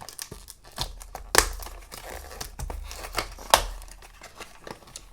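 A small cardboard blind box being torn open by hand, with crinkling and rustling and two sharp cracks about two seconds apart as the cardboard gives.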